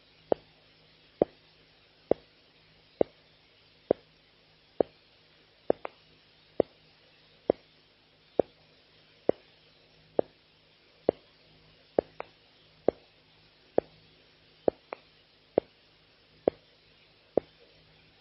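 Sharp single clicks repeating at an even pace, a little faster than once a second, a few of them followed by a fainter second click, over a faint steady low hum.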